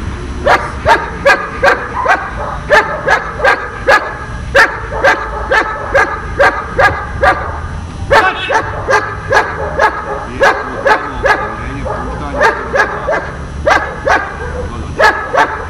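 A dog barking hard and repeatedly, about two to three sharp barks a second, in long runs broken by a few short pauses.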